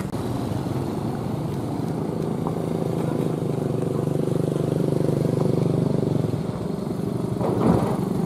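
Motor vehicle engine running steadily, growing louder through the middle, with a brief louder burst near the end.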